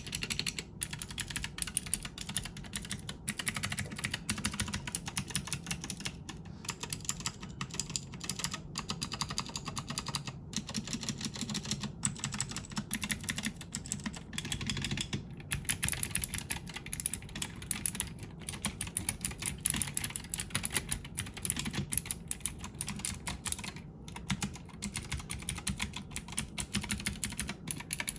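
Typing on a Womier K66 mechanical keyboard with clicky Gateron Blue switches: a steady, fast stream of key clicks with only brief pauses.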